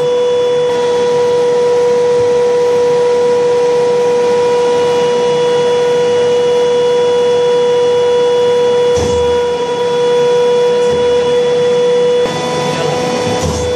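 Steady, loud, single-pitched whine over a hiss, the machine noise of an M1 Abrams tank heard through its gun-sight recording, with a dull thump about nine seconds in.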